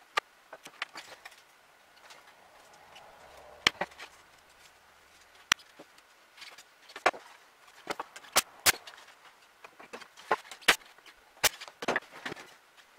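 Light wooden beehive frame parts knocking and clacking against each other and the workbench as they are handled and set out, a string of irregular sharp knocks.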